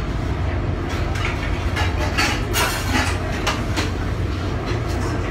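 Busy commercial kitchen: a steady mechanical hum and rumble from the ventilation and equipment, with scattered clinks and clatter of metal pans and dishes.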